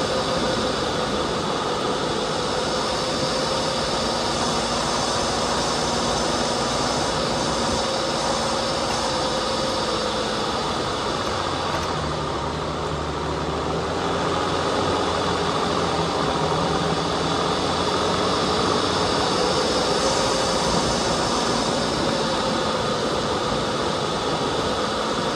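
Off-road vehicle's engine running steadily while climbing a dirt trail, its pitch slowly rising and falling, with a steady noisy hiss beneath it.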